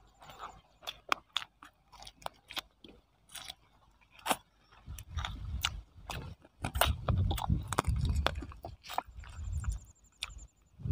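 Close-up eating by hand: fingers picking through chicken biryani make small scattered clicks and crackles. From about five seconds in there is denser, lower chewing and mouth noise, with smacks, as mouthfuls go in.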